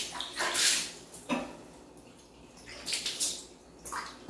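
Water splashing and sloshing in plastic basins as a cat is washed by hand, in several short bursts with quiet gaps between.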